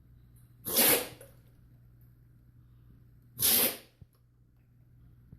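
A dog sneezing twice, sharp hissing sneezes about two and a half seconds apart, part of a sneeze attack.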